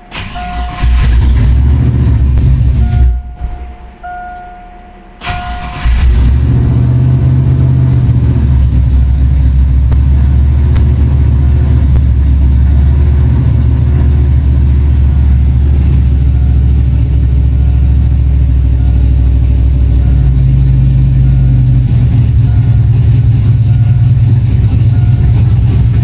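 Ford Mustang's turbocharged 351 V8 starting. It turns over and runs for about two seconds, then drops away, with a few short electronic tones. About six seconds in it fires again and settles into a loud, steady idle.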